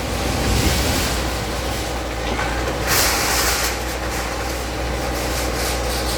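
Heavy earthmoving machine running, a steady low rumble under a continuous clattering noise that grows hissier for a moment about three seconds in.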